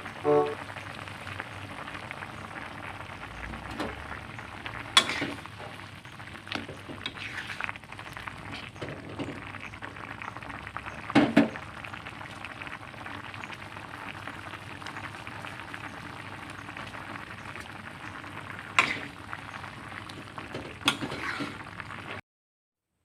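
Jackfruit and salted fish in coconut milk bubbling in a pot, a steady simmering hiss, with a few sharp clinks of a spoon against the pot as it is stirred.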